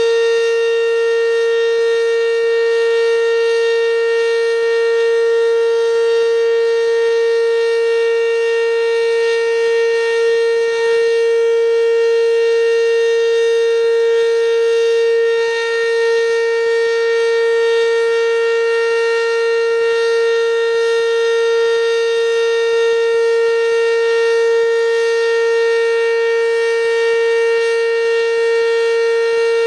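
ACA Banshee outdoor warning siren sounding a loud, steady single tone held at one pitch during its weekly test.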